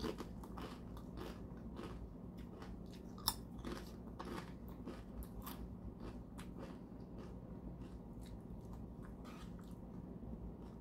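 Close-miked chewing and crunching of a tortilla chip: a run of crisp crunches that thin out in the second half, with one sharper crunch about three seconds in.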